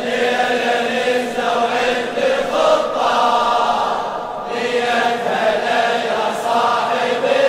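Large crowd of men chanting a Shia latmiya refrain in unison, with the slaps of chest-beating (latm) in time with the chant.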